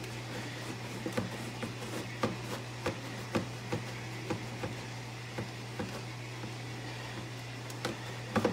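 Knife blade cutting incisions into a thin plastic 2.5-gallon water jug: scattered small clicks and crackles of the plastic at irregular spacing, over a steady low hum.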